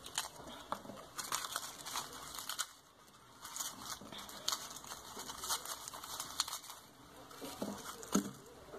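Garlic being peeled by hand: dry papery skins crinkling and tearing in irregular small crackles.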